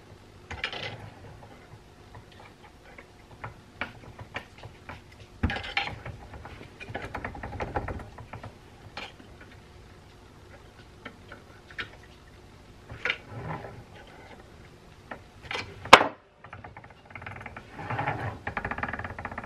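Metal clicks, clinks and short rattles from the hand-crank grinder's gear housing and the tools working on it as its loose gearing is tightened, with one sharp knock late on. Near the end the gears are turned over with a fast, even whirring clatter.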